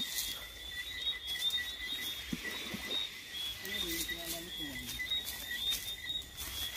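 Fishing net with plastic floats being dragged and handled over sand and seaweed, giving scattered rustles, scrapes and light clicks.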